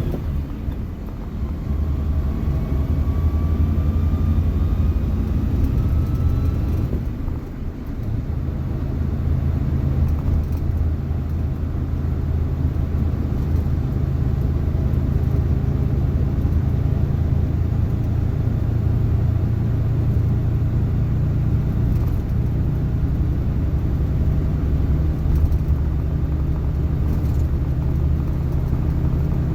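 Suzuki JA71 Jimny on the move: a steady rumble of engine and drivetrain. For the first seven seconds a faint rising whine rides on it, which stops with a brief dip in level. A whine of this kind in this Jimny comes from a failing transmission bearing.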